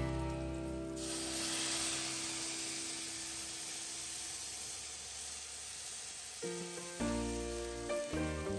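Liquid poured into a pot of hot frying oil, bursting into a loud hissing sizzle about a second in that runs on for about five seconds before dying down. Background music plays at the start and comes back near the end.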